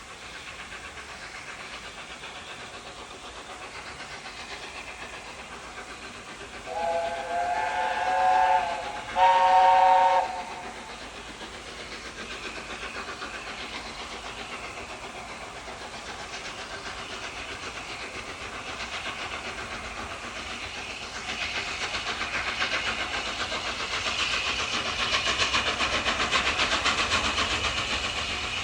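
Steam locomotive whistle sounding two blasts, a longer one of about two seconds followed by a shorter one of about a second. Later a steam train is heard running, its sound growing louder toward the end.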